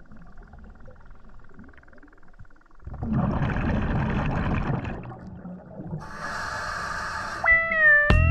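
Scuba breathing through a regulator, heard underwater: a loud rush of exhaled bubbles about three seconds in, then a hissing breath about six seconds in. Background music starts near the end.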